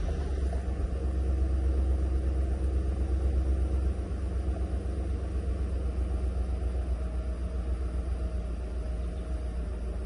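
Steady low rumble of a 2008 GMC Yukon with its engine running; the level drops slightly about four seconds in.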